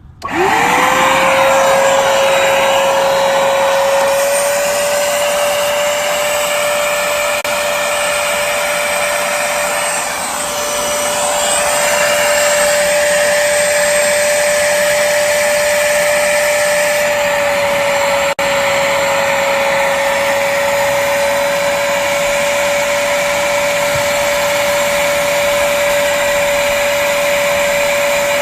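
Hoover Spotless portable spot cleaner's motor switching on and spinning up within half a second to a steady whine over a loud rush of suction air. It dips briefly in loudness about ten seconds in, then runs on evenly.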